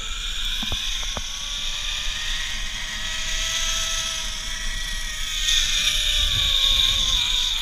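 Zipline trolley pulleys running along the steel cable: a steady whirring whine over a hiss, with a couple of clicks about a second in. The whine climbs slowly in pitch through the first half of the run and sinks again toward the end as the rider slows.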